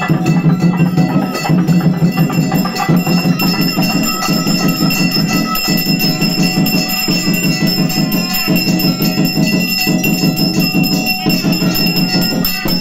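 Small brass hand bell rung rapidly and continuously during an aarti, its ringing held steady. Underneath runs a low beat that pulses about every second and a half.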